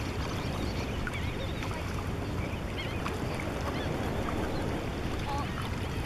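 Many short, high chirping bird calls scattered over a steady low rumble of wind and water.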